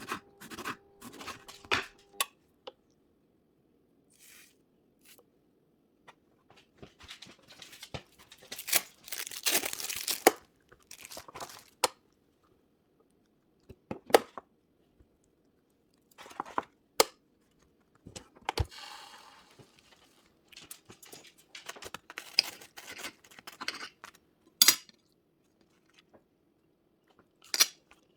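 Bread being torn apart by hand in short, separate rips, with crinkling and sharp taps in between and brief pauses of near silence.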